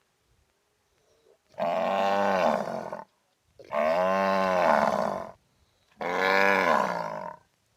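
Cow mooing: three long, loud moos, each rising and then falling in pitch, with short silent gaps between them.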